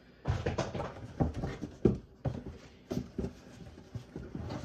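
Hands rummaging through a box of shoes: irregular rustling and handling noise with soft knocks.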